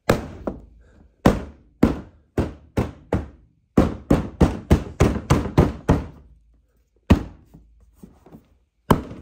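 A series of about sixteen sharp knocks, struck one after another while parts of the car's front end are knocked back into place, with a quick run of about three knocks a second in the middle and two last ones near the end.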